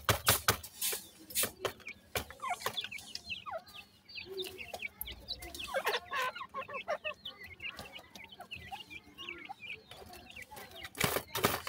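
Young grey francolins giving a steady stream of short, falling chirping calls, with a few sharp clicks right at the start and again near the end.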